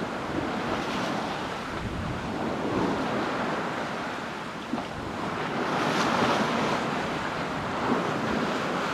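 Sea rushing and splashing along the hull of a sailing yacht under way, with wind buffeting the microphone. The rush swells louder about six seconds in.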